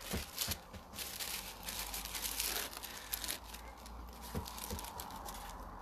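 Crinkling and rustling of a bath bomb's white wrapping as it is handled and pulled open, with many small sharp crackles, busiest for the first three and a half seconds and quieter after.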